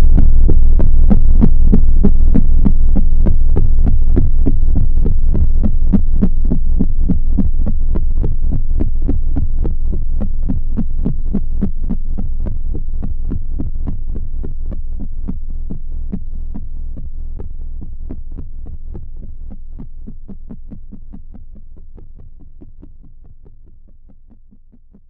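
Outro of a post-punk/darkwave track: a low, droning tone pulsing in a fast, even rhythm, fading out steadily to silence.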